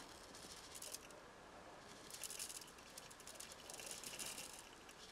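Dry rice poured in three short pours from a small bowl into a Thermomix's stainless-steel mixing bowl, the grains pattering faintly, as it is measured out on the machine's scale.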